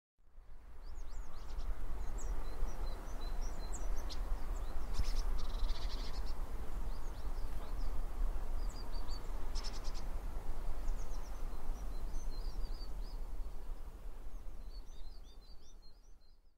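Outdoor ambience of wind rumbling on the microphone with a steady rushing hiss, and small birds chirping in short, scattered calls throughout, busiest near the end.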